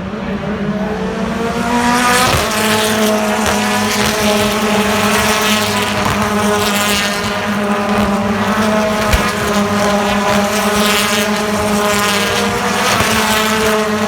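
Several BTCC touring cars' turbocharged 2-litre four-cylinder engines racing at full throttle. The engine notes rise in pitch over the first couple of seconds, then overlapping engines run on steadily.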